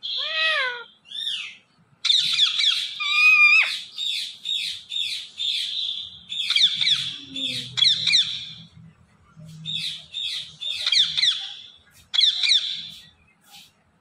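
Rose-ringed parakeet chattering in bursts of rapid, high chirps and squawks, with short pauses between the bursts.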